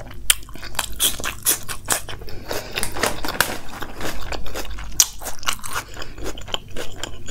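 Close-miked chewing of a hand-fed mouthful of vegetable dum biryani, with irregular crisp crunches and wet mouth clicks.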